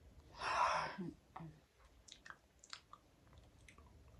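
Eating ice cream off a metal spoon: a short breathy rush about half a second in, then small mouth clicks and lip smacks.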